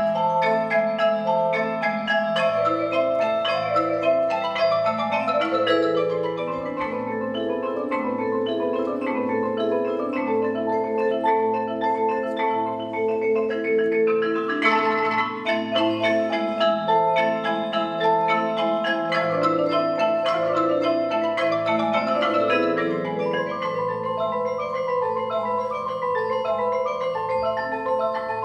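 Mallet percussion ensemble of marimbas and vibraphones playing music: many quick struck notes in fast runs over sustained low bass notes.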